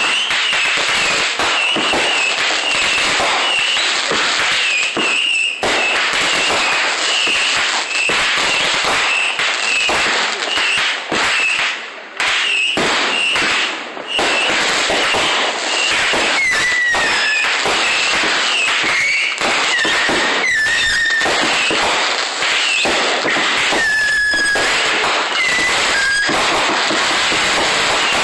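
Fireworks going off in a rapid, nearly unbroken barrage of bangs and crackling, with short high whistles, some falling in pitch, mixed in.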